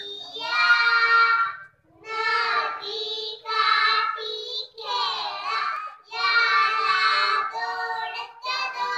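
Young girls singing a song at a microphone, in phrases with short breaks between them, the longest break a little under two seconds in.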